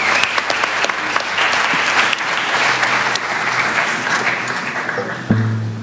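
Audience applauding in a theatre, a steady patter of many hands that thins out about five seconds in, as a low plucked note from the band sounds near the end.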